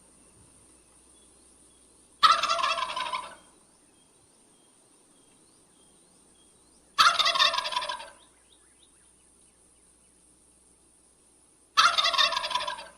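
Male wild turkey gobbling three times, each a loud, rapid gurgling call lasting about a second, roughly five seconds apart.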